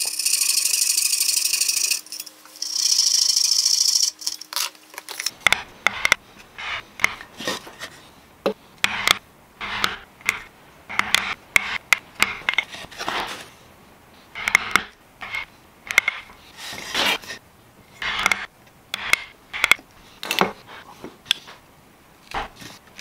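A coping saw cutting out the waste between dovetails, in two runs of quick strokes for the first few seconds. From about five seconds in, a chisel working the dovetail baseline in short, irregular cuts, one or two a second.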